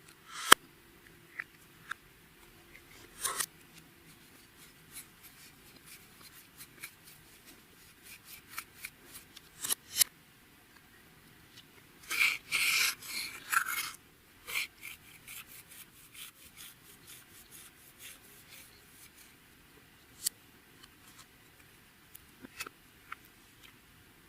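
Clear slime being kneaded and pressed by hand: scattered sticky clicks and small pops, with a denser two-second run of crackling squelches about halfway through.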